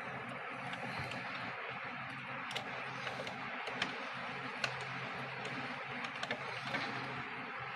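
Scattered small sharp clicks and taps of hand tools and plastic parts being worked on a label printer, over a steady background hiss and low hum.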